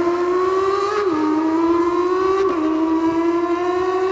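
A man imitating a V10 supercar engine with his mouth: a buzzing, engine-like drone that climbs slowly in pitch and drops sharply twice, about a second in and again past halfway, like upshifts under acceleration.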